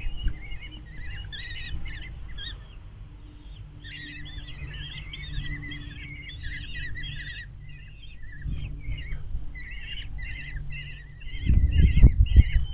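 Common kestrel nestlings begging, a rapid, repeated series of short high calls that pauses briefly a couple of seconds in and then keeps on, over a steady low rumble. A burst of loud low thumps comes near the end.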